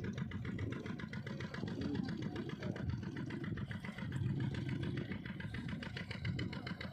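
Boat engine running steadily with a fast, even chugging beat.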